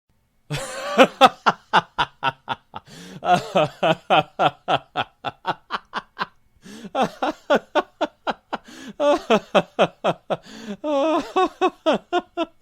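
Human laughter sound effect: fast, repeated 'ha-ha' bursts of a laughing voice, breaking off briefly a little past six seconds in and then going on.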